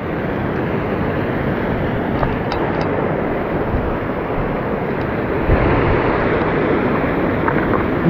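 Steady rushing noise of a mountain headwater stream's flowing water.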